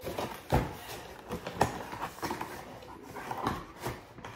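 Cardboard box being handled and opened: irregular knocks and scraping, with the loudest thumps about half a second and a second and a half in.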